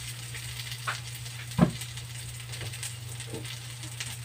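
Potato chunks with chicken liver and gizzard sizzling in oil in a wok, with light crackling over a steady low hum. A few sharp pops or clicks stand out, the loudest about a second and a half in.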